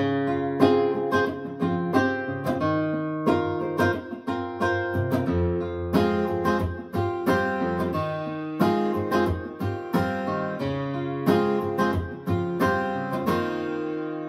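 Acoustic guitar music played back through an Icon Audio MFV 3 Super floorstanding speaker: a run of plucked and strummed notes in quick succession, with the last chord left ringing near the end.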